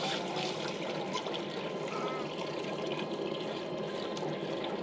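Water pouring in a steady stream from an aluminium bucket into an aluminium cooking pot, splashing into the water already in it.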